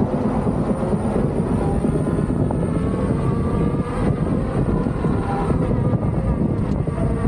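Wind rushing over the microphone of a camera carried on a moving electric unicycle: a steady, mostly low rush with no breaks.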